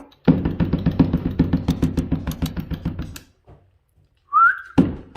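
A rapid pulsing sound, about ten pulses a second, runs for about three seconds. Near the end comes a short rising whistle from a person calling the puppies.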